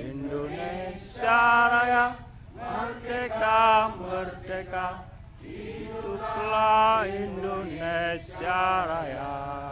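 Male voices singing a slow, chant-like song in held phrases of a second or two with short breaks between them.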